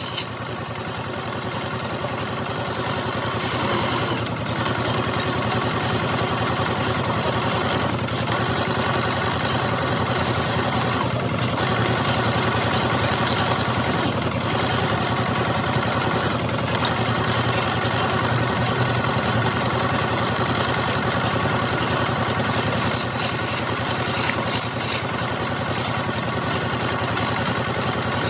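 Wood lathe running steadily with a continuous motor hum, turning a wooden spindle.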